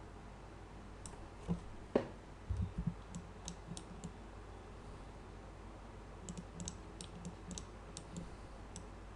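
Faint clicking of a computer mouse in scattered groups, with a few soft low thumps about two seconds in, over a low steady room hum.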